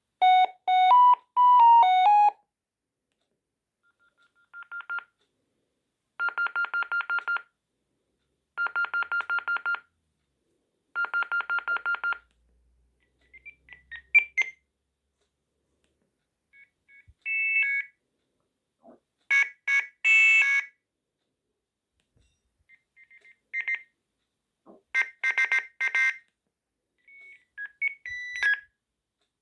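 Sagem MW 3020 mobile phone's built-in ringtones played one after another. First a short beeping tune, then three bursts of a fast trilling ring on one pitch, then several more short beeping melodies and alert tones, each separated by brief gaps.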